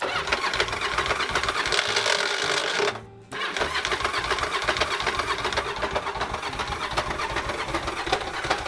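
1989 Yamaha Virago 750's air-cooled V-twin engine running with a fast, rough clatter, firing on only one of its two cylinders because the back cylinder is not connected. The sound cuts out briefly about three seconds in, then carries on.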